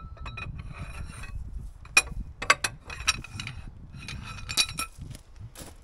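Socket ratchet wrench clicking and clinking against metal while loosening the engine oil drain plug under a mini excavator. There are a series of sharp metallic clicks, the loudest about two seconds in.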